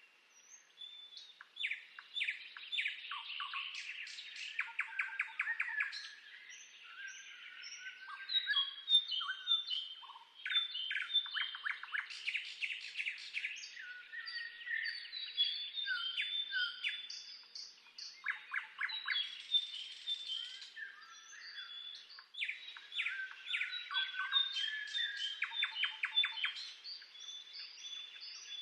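Several songbirds singing at once: a dense chorus of chirps, quick trills and whistled notes that overlap.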